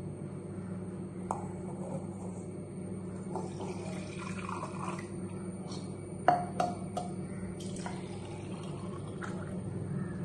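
Lemon water poured between a steel bowl and a glass tumbler, trickling and splashing, with a few sharp clinks of the steel bowl against the glass about six seconds in. A steady low hum runs underneath.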